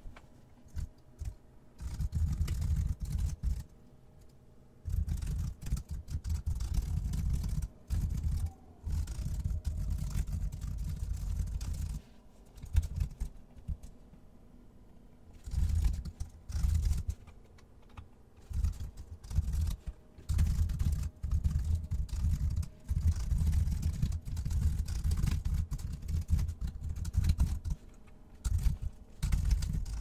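Fast typing on a computer keyboard, in bursts of a few seconds broken by short pauses.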